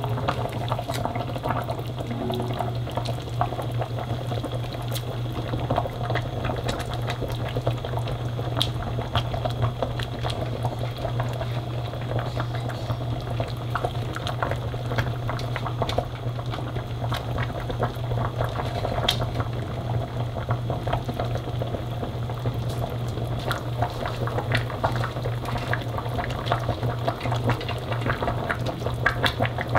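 Spicy mala tang broth at a rolling boil in a stainless steel pot, bubbling and popping steadily, over a steady low hum.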